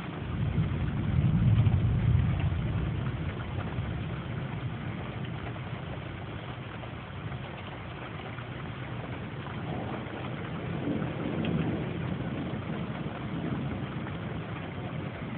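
Steady hiss of heavy storm rain, with a low rumble swelling about a second in and fading by three seconds.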